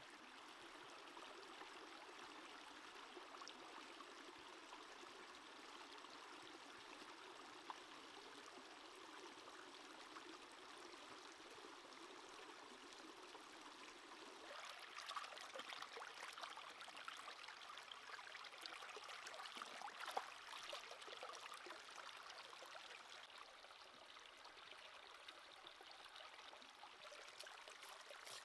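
Faint, steady flow of a shallow stream running over rocks. About halfway through the sound changes, with scattered small clicks and knocks over the water, one sharper than the rest.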